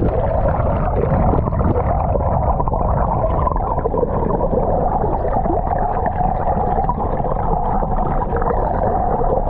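Underwater sound heard through a camera held just below the sea surface: a muffled low rumble of water with a steady droning hum running through it.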